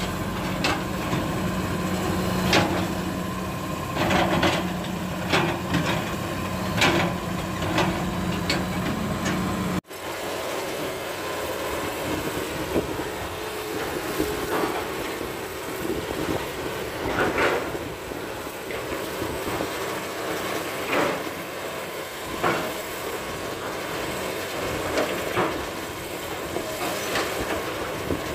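Heavy diesel machinery close by: a steady engine hum from the excavator and dump truck, with scattered metal clanks and knocks. About ten seconds in the sound cuts off suddenly and goes on more distant, the hum much lower and the excavator's irregular clanks and knocks of digging carrying on.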